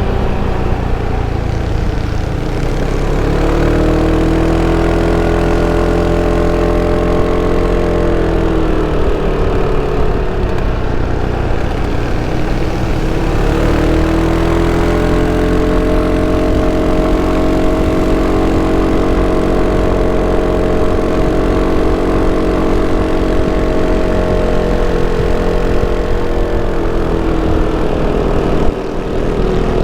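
Sym Cruisym 300 scooter's stock exhaust and single-cylinder engine running while riding. The engine note rises a few seconds in, eases off around ten seconds in, climbs again and holds steady, then drops back near the end.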